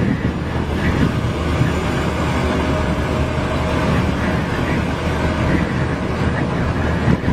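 Strong wind blowing hard over the microphone: a loud, steady rumbling roar that flickers with the gusts.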